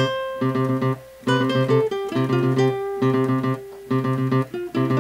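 Acoustic guitar music: plucked and strummed chords in a repeating pattern, with a brief lull about a second in.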